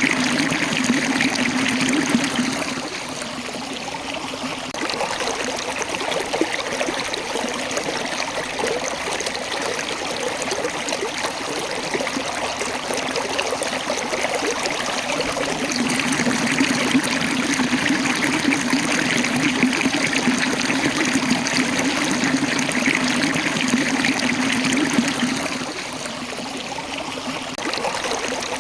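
Water running and splashing over rocks in a stream or small waterfall, a continuous rushing that eases a little twice and swells back.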